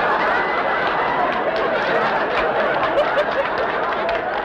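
Studio audience laughing, a long, steady wave of laughter from a large crowd.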